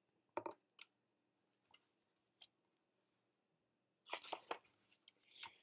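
Paper pages of a picture book being handled and turned: a short rustle about half a second in, a few faint ticks, then a cluster of crisper page flicks and rustles from about four seconds in, with near quiet between.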